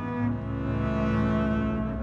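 Background music with long held low notes, moving to a new chord just after the start.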